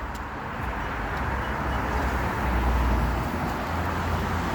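Steady rumble of road traffic, growing slightly louder toward the end.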